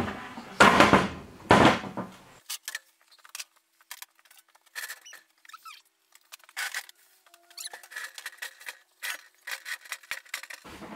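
Things being handled and set down: two loud rustling or scraping sounds in the first two seconds, then scattered light clicks and knocks, with a brief squeak about two-thirds in.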